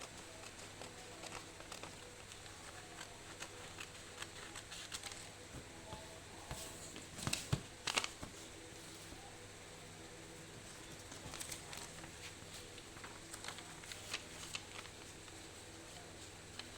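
Sheet of paper being handled and folded by hand: soft rustles and small taps throughout, with a louder crackle of paper about seven to eight seconds in.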